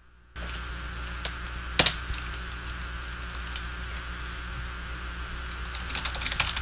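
Steady electrical noise from the Apex175 shotgun condenser microphone's channel, starting suddenly about a third of a second in: hiss with a low mains hum under it and a thin steady whine. The noise is coming off the mic channel and is called terrible. A few sharp clicks sound on top, several of them near the end.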